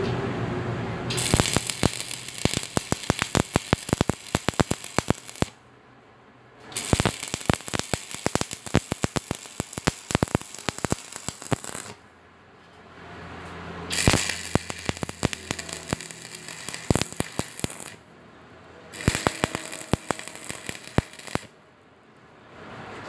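Stick (shielded metal arc) welding on a steel roof-truss joint: the arc crackles and spits with sharp pops. It comes in four runs of a few seconds each, with short breaks between them.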